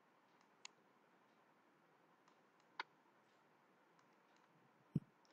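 Near silence: faint room tone with three small isolated clicks about two seconds apart, the last one a duller thud.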